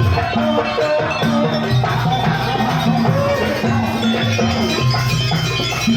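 East Javanese jaranan music playing at a steady, loud level. Held low notes step from pitch to pitch beneath a melody line that bends up and down.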